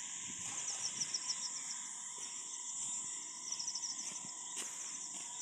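Insects, crickets by the sound of it, trilling steadily in a high, rapidly pulsing chorus.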